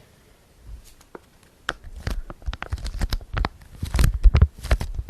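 ASMR tapping: quick, irregular fingertip taps and clicks close to the microphone. They start about a second and a half in and grow louder, with dull low thuds among them.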